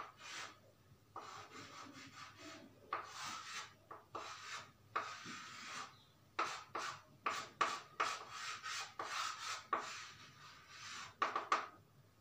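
Chalk scratching on a chalkboard in many short, irregular strokes with brief pauses, as lines are drawn by hand.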